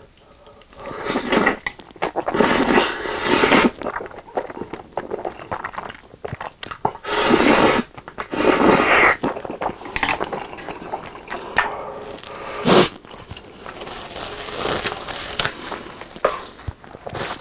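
A person noisily slurping up carbonara Buldak fried noodles in several long slurps, mostly in the first half, with wet chewing between and after them.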